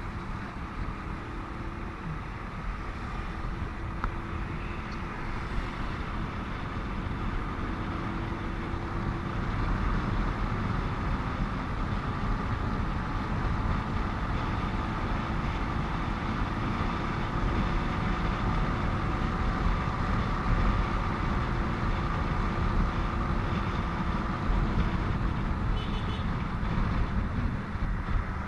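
Riding on a motorcycle in highway traffic: wind rushing over the microphone with a steady engine and road hum, getting somewhat louder about ten seconds in.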